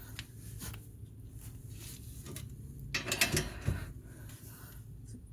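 Metal clicks and clinks from a wrench working the 14 mm bolts of a Honda Civic's rear brake caliper bracket, with a louder cluster of knocks about three seconds in.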